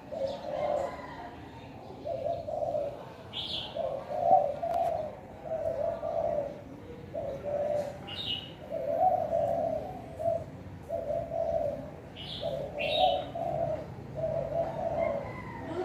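Spotted dove cooing over and over in low, even notes with short gaps between them, the bird in song after finishing its moult. A few short, high chirps cut in now and then.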